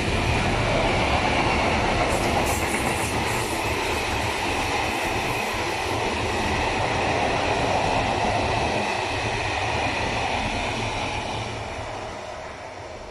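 Freight wagons, tank cars and then loaded hopper wagons, rolling past on steel wheels: a steady rumble and clatter on the rails, with a brief faint high squeal about two seconds in. The sound fades near the end as the last wagon goes by.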